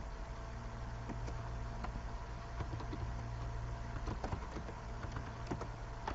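Scattered computer keyboard clicks at an irregular pace over a steady low electrical hum on the microphone line.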